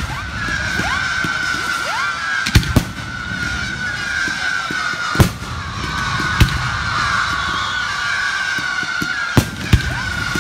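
Aerial firework shells bursting in a display: about six sharp bangs, two of them in quick pairs, over a steady background hiss and crackle, with a few short rising whistles.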